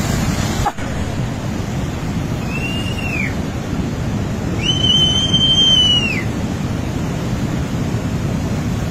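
Steady low rushing roar of a flash flood carrying mud and boulders down a mountain stream. Two high whistles sound over it: a short falling one about two and a half seconds in, and a longer held one about five seconds in that drops away at its end.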